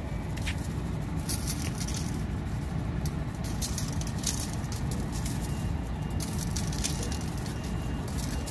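Salt shaken from a shaker onto a raw beef brisket and aluminium foil, a light crackly patter in several short bursts, over a steady low rumble.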